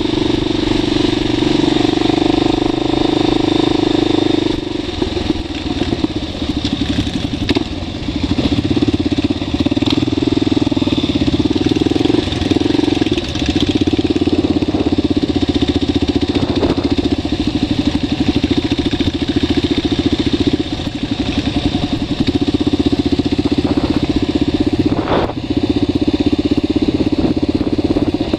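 Motorcycle engine running steadily while riding, heard from on the bike itself. The engine note changes about five seconds in, and the level dips briefly twice.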